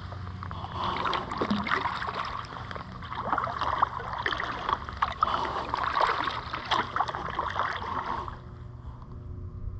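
Kayak paddling: the paddle splashing and water dripping in an uneven run of small splashes. It cuts off suddenly about eight seconds in, leaving a faint low hum.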